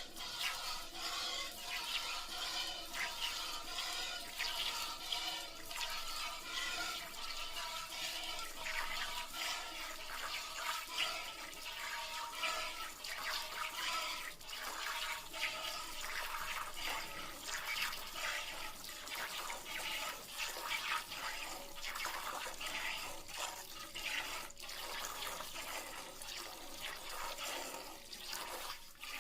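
Milk squirting in quick, repeated streams into a pail, a continuous liquid hiss with a ringing tone from the vessel.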